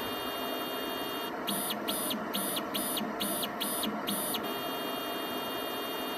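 PATHFAST immunoassay analyzer running with a steady electrical hum, broken by seven short, even whines, about two a second, from its pipetting drive as the tips draw up and push out liquid during the magnetic-bead separation.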